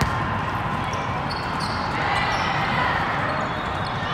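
A volleyball serve: one sharp smack of hand on ball right at the start. It is followed by the steady, echoing din of a large, busy sports hall.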